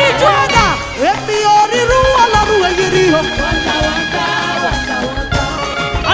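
Live gospel worship music: a voice singing with band accompaniment and a held steady note.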